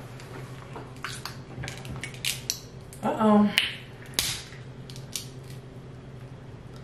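Crab leg shells being cracked and picked apart by hand: a scatter of sharp cracks and clicks, with a brief murmur of voice about three seconds in.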